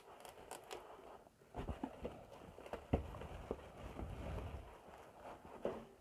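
Faint handling of a cardboard box and its packaging during unboxing: scattered light taps, scrapes and soft knocks.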